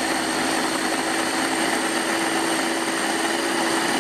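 Electric mini food chopper running steadily under the hand's press, its motor whirring at a constant pitch as it blends chimichurri of parsley, cilantro, garlic and olive oil.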